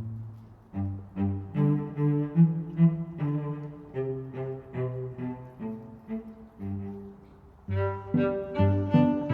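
Background instrumental music: an acoustic guitar picking a melody note by note, with a low bass line.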